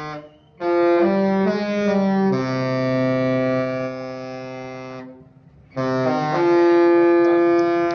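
Cruise ship's musical horn playing a tune: a series of long, chord-like blasts that step between pitches, a short break about five seconds in, then a few quick notes and a long held one.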